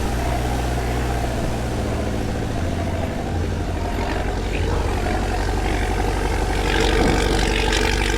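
Engine of a 4x4 off-road vehicle running under load on steep sand-dune slopes, a steady low drone. A rush of noise grows louder about seven seconds in.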